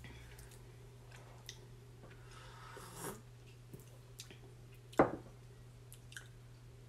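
Quiet tasting sounds over a steady low hum: a soft sip of hot coffee from a ceramic mug, a few small clicks, then one sharp knock about five seconds in as a mug is set down on the table.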